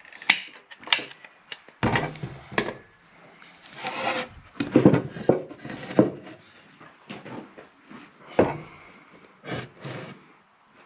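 Irregular sharp knocks and taps of 5/8-inch plywood pieces being handled and tacked together with finish nails, with some scraping and rubbing of the wood between the knocks.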